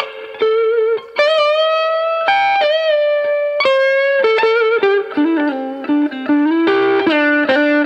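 Electric guitar with a humbucker pickup, played through a small combo amp: a lead line of held single notes with wide vibrato and bends, then a quicker run of lower notes in the second half.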